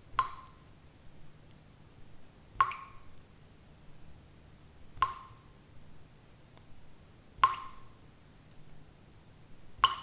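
Water dripping at a steady rhythm: five drops about two and a half seconds apart, each a sharp plop with a brief ringing note.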